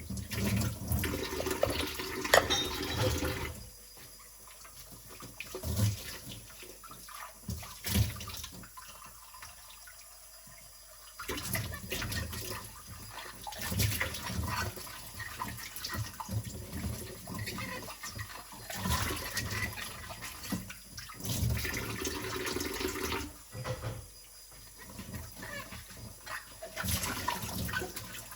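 Dishes being washed by hand in a sink: water splashing with knocks and clinks of dishes, in bursts, with quieter pauses about 4 to 11 seconds in and again a few seconds before the end.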